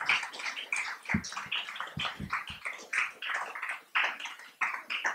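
A small audience clapping in uneven, scattered claps, with a few dull low thumps between about one and three seconds in.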